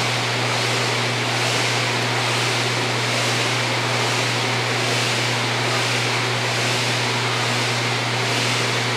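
Kayak paddling ergometer's flywheel whirring steadily under continuous strokes, its whoosh swelling and easing about once a second with each paddle pull, over a constant low hum.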